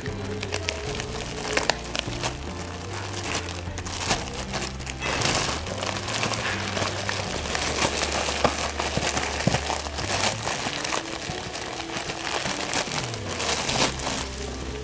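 Clear plastic wrapping crinkling and rustling as hands pull a parcel open and unwrap it, with background music underneath.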